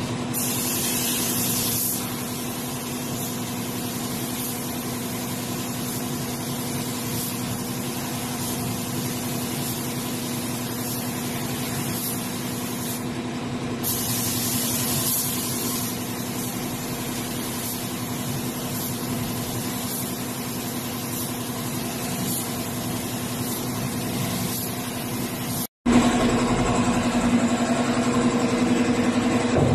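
Paint spray gun hissing as it sprays, over the steady hum of the air compressor that feeds it; the hiss swells about a second in and again around fifteen seconds in. Near the end the sound breaks off for an instant and comes back louder.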